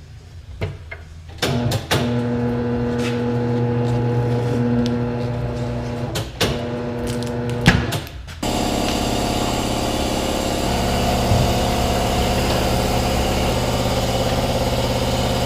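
Electric wheel balancer spinning a motorcycle wheel, a steady motor hum after a few clicks. About eight seconds in the sound changes abruptly to a louder, rougher steady running that carries on.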